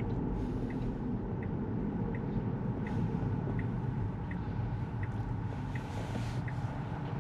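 Tesla turn-signal indicator ticking at an even pace, about three ticks every two seconds, over a low steady hum inside the car's cabin.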